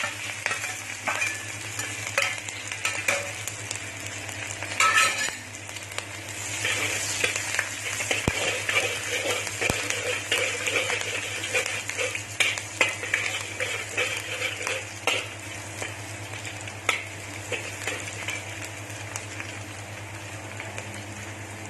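Finely chopped ginger, garlic and green chilli sizzling in hot mustard oil in a kadai while a spatula stirs and clicks against the pan. The sizzle grows louder about six and a half seconds in.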